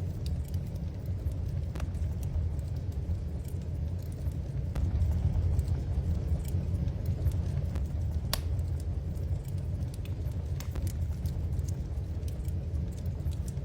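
Wood fire burning in a fireplace: a steady low rumble with scattered crackles and pops, one sharper pop about eight seconds in.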